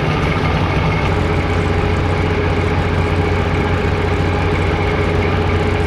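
Fishing boat's engine idling with a steady low drone, a little stronger from about a second in.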